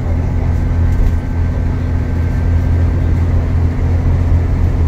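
Steady interior noise of an Alexander Dennis Enviro400 MMC diesel double-decker bus on the move: a constant low engine drone mixed with road and tyre noise, heard inside the passenger saloon.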